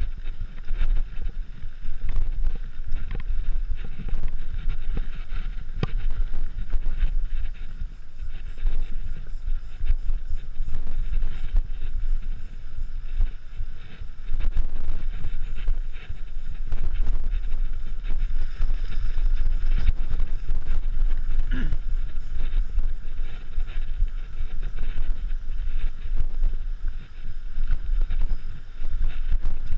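Wind buffeting a camera microphone during a mountain-bike ride, with a heavy, gusty rumble and scattered clicks and rattles from the bike.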